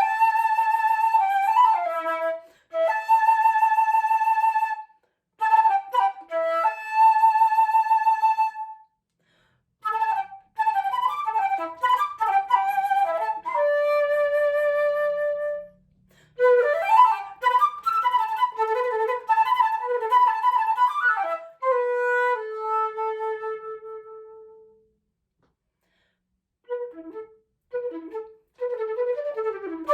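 Solo unaccompanied flute playing phrases of quick notes and held tones, broken by short silences. A long low note fades out about three quarters of the way through, and after a pause of about two seconds quick notes start again.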